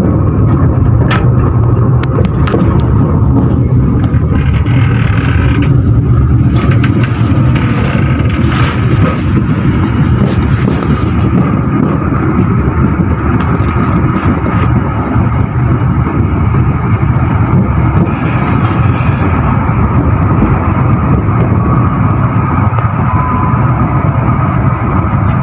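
Kahuripan passenger train running between stations, a steady low rumble of wheels on rails heard from on board, with a few faint clicks.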